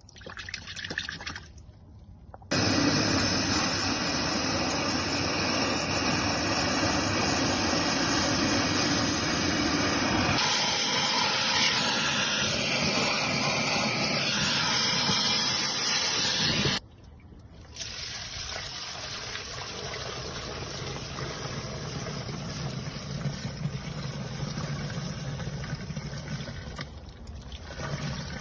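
Wet vacuum running, sucking standing water out of a flooded car footwell carpet. It starts sharply a couple of seconds in, its sound changes about ten seconds in, and it cuts off suddenly about halfway through, leaving a quieter steady rushing sound.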